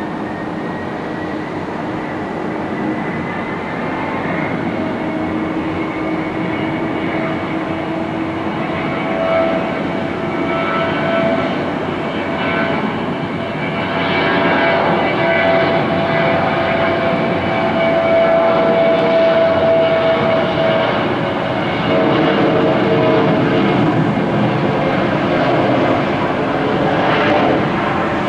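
Jet airliner engines running, a steady rush of noise with a whine of several pitched tones; one tone slides slowly upward early on and the sound grows gradually louder.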